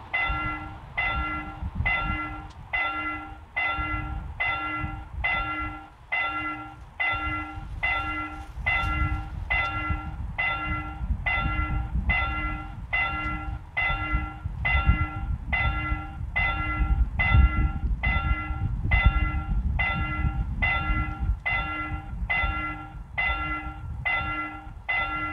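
Railway level-crossing warning bell ringing in a steady rhythm, about one and a half strokes a second, over a low, uneven rumble.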